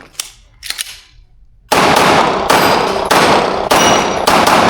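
Glock 17 Gen5 9mm pistol firing in a rapid string of about five loud shots, roughly one every 0.6 s, starting about a second and a half in. Each shot rings on. Two lighter, sharp knocks come before the first shot.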